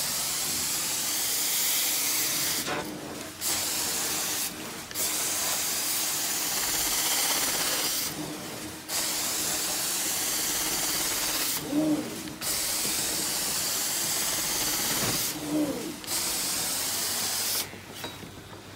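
Carpet-cleaning extraction wand hissing steadily as it sprays and sucks water back up from the carpet, dropping out briefly every few seconds between strokes. There are a couple of short squeals along the way.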